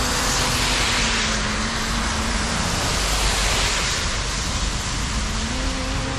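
Steady heavy rain beside a road, with the hiss of car tyres on the wet surface swelling as vehicles pass, twice.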